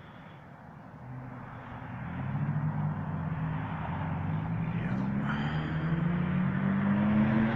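A road vehicle's engine approaching, its tone rising slowly in pitch and growing louder as it speeds up.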